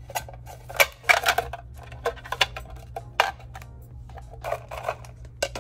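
Saving-challenge envelopes and packaging handled by hand: scattered clicks and rustles at irregular moments over a low steady hum.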